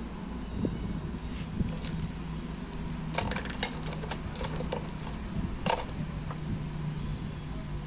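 Soldering-kit parts, a coiled-spring iron stand and a roll of insulating tape among them, being picked up and set down on a tabletop: light metallic clinks and clicks in a few clusters, about two, three and six seconds in, over a steady low hum.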